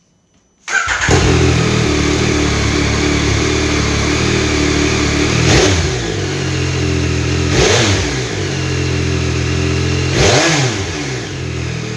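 A 2021 Yamaha MT-09 SP's 890 cc inline-three running through its stock exhaust at idle. Three short throttle blips in the second half each rev the engine up and let it fall back to idle.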